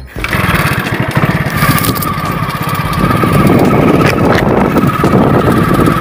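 Motorcycle engine running as the bike is ridden along a dirt track, heard from on the bike; it comes in suddenly and grows louder over the first few seconds, then holds steady.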